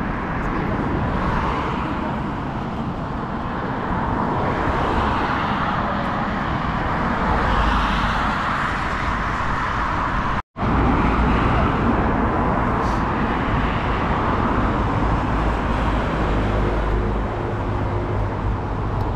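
Steady road traffic: cars passing along a busy road, the noise swelling and fading as vehicles go by. About halfway through it drops out for a split second.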